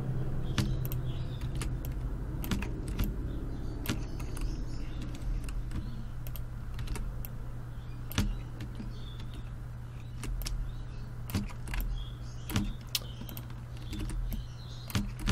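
Irregular clicks of a computer mouse and keyboard, a dozen or so scattered sharp taps, over a low steady hum.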